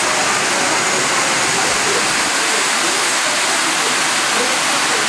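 A steady, loud rushing hiss with no breaks.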